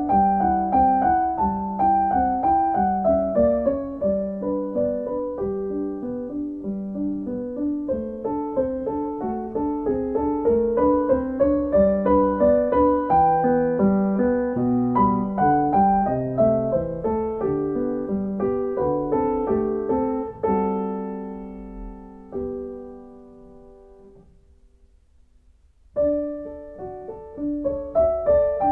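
Solo piano music, a flowing run of notes. It dies away to a near pause a little past the middle and starts up again a few seconds before the end.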